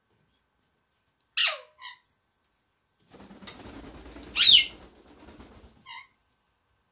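Alexandrine parakeet calling: a loud squawk sliding sharply down in pitch about a second and a half in, then a short clipped note. Midway comes a stretch of rustling with a click, and a second loud falling squawk, the loudest sound, about four and a half seconds in; another short note ends it.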